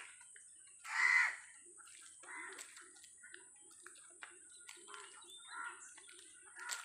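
Crows cawing at intervals among other bird calls, the loudest caw about a second in and a few shorter ones after.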